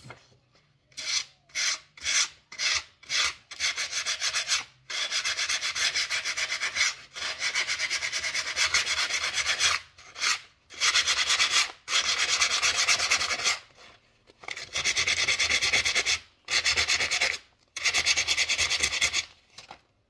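Hand sanding with a sheet of 220-grit sandpaper rubbed over a dried, chalk-painted ceramic vase. It starts with a few short scratchy strokes, then goes into longer spells of steady rubbing broken by brief pauses.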